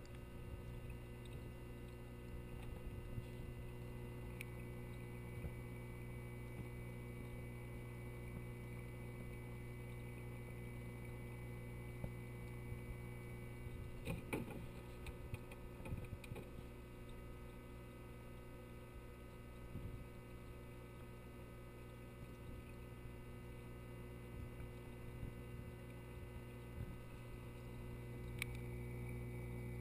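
Steady electrical hum from a 29-gallon Biocube reef aquarium's running equipment: a low hum with a fainter high tone above it. A few faint clicks come about 14 seconds in and again near the end.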